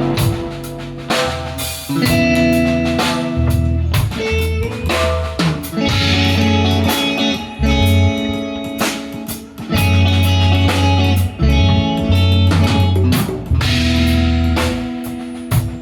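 A live band playing an instrumental passage on guitar, bass and drum kit, with steady drum hits under sustained guitar and bass notes.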